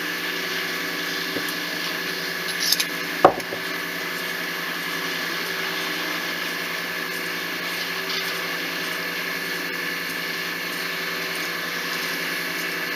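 Hand-turned case trimmer cutting a .223 brass case mouth, with a steady light scraping as the cutter is turned. There is a sharp click about three seconds in, over a steady background hum.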